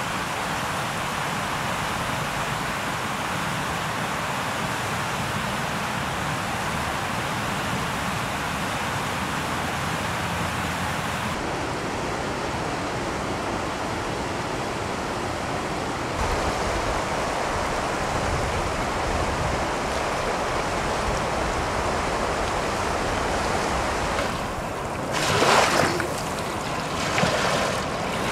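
A fast mountain river rushing, with some wind on the microphone. The noise changes character a couple of times, and a few louder rushes come near the end.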